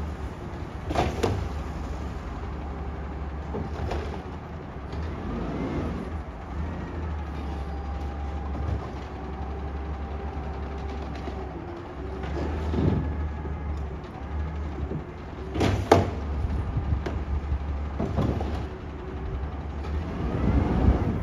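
Automated side-loader garbage truck idling with a steady low rumble while its hydraulic arm grabs, lifts and tips a yard-waste cart into the hopper and sets it back down. Hydraulic whines rise and fall, and several sharp clanks and bangs come from the cart and arm, the loudest about three-quarters of the way through.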